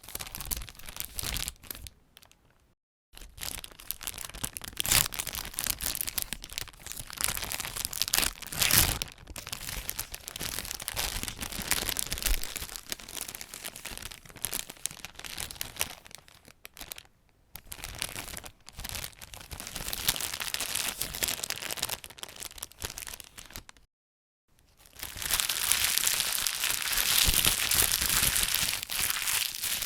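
Chocolate multipack packaging being torn open and handled: irregular crinkling and tearing in bursts with brief pauses. Near the end, after a short silence, the wrapper is squashed into a ball with continuous, louder crumpling.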